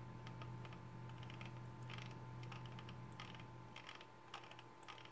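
Irregular light clicks of typing on a computer keyboard, a few a second, over a steady low electrical hum with a faint high whine.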